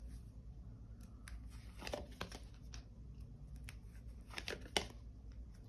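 Faint handling noise of tarot cards: a few light clicks and rustles over a low steady room hum.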